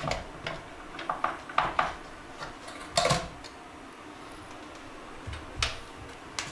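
Clicks and knocks of a plastic electric shower unit being worked free of a tiled wall and lifted off, with a few light clicks early, the loudest knock about three seconds in and another near the end.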